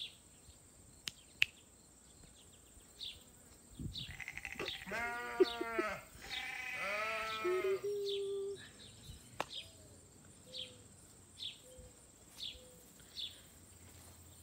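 Sheep bleating: two long wavering bleats, about four and six and a half seconds in. A few sharp clicks come near the start, and a short high chirp repeats about once a second near the end.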